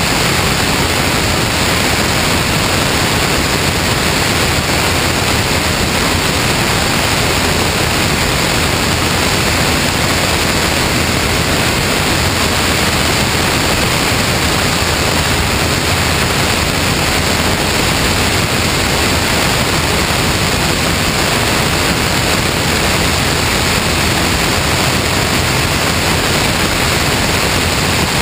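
Steady rushing wind noise from the airstream over a camera mounted outside on the wing of a Cessna 162 Skycatcher in flight, even and unbroken, covering any engine sound.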